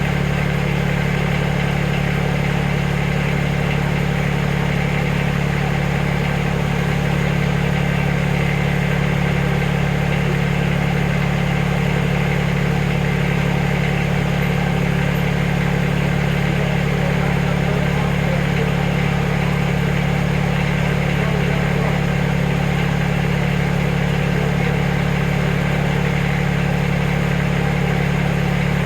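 Backhoe engine idling steadily, with no revving or change in load.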